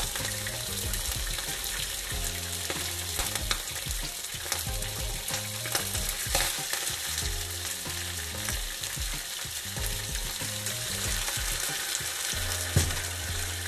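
Hot oil sizzling and crackling in a nonstick frying pan as raw banana slices are laid into it by hand among frying curry leaves. A single sharp knock near the end.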